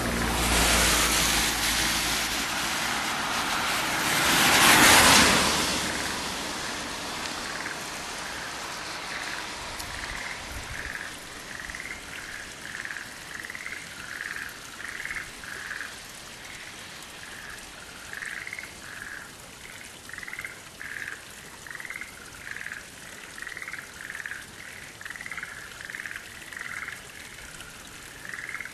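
A chorus of frogs calling, short croaking notes repeated about twice a second in runs with brief pauses. In the first six seconds a loud rushing noise swells, peaks and fades over the calls.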